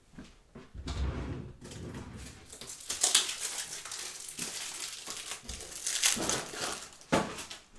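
Irregular crinkling and rustling of plastic packaging with handling noise, as card top loaders are pulled out. Sharper crackles come around three seconds and again around six seconds in.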